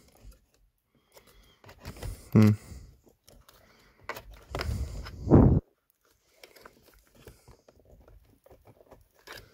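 Flat screwdriver prying at the plastic latch of a steering-wheel airbag connector: scattered clicks and scrapes of metal on plastic, with a louder, longer scrape about five seconds in.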